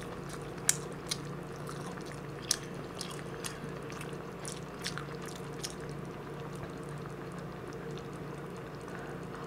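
Eating sounds: quiet chewing and a scattering of short, light clicks of a metal spoon against an earthenware pot and rice bowl, over a steady low hum.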